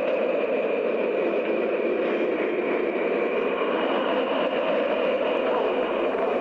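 Steady city traffic noise, an even rushing din with no rhythm or tune.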